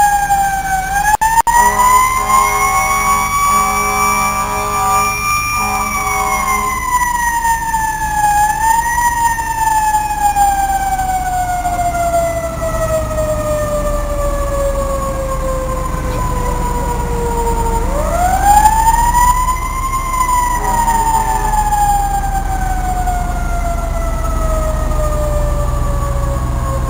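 Fire engine siren winding up, then slowly falling in pitch for about ten seconds, wound up again about 18 seconds in and falling once more, in the slow rise and long coast-down of a mechanical siren. Short horn blasts sound between about two and seven seconds in and briefly again near 21 seconds, over the low rumble of a passing truck.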